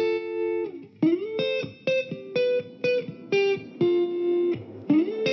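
Background music: a guitar playing a line of single plucked notes, with a couple of notes sliding up in pitch.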